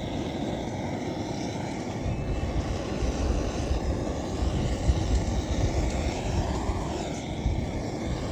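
Wind buffeting the microphone: a steady low rumble that grows heavier about two seconds in.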